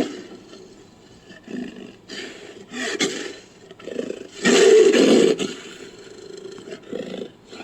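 Designed creature roars and growls for a Lycaenops, built from leopard and wolf recordings: a loud roar fading at the start, a few short quieter growls, then one loud roar about four and a half seconds in, followed by softer growls.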